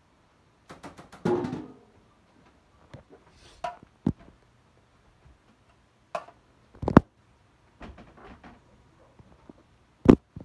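Scattered knocks and thuds from a phone being picked up and handled, with a short scraping sound about a second in and the loudest knocks about seven seconds in and near the end.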